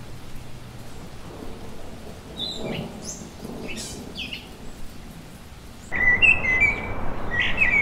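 Rain falling steadily, with a low rumble underneath and a few scattered high chirps. About six seconds in the sound cuts sharply to something louder, with repeated high-pitched chirping calls.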